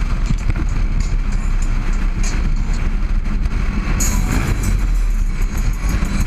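Harley-Davidson Road Glide at freeway speed: a heavy, steady rumble of wind on the microphone with the engine beneath it. About four seconds in, the sound turns brighter and hissier as the bike passes under an overpass.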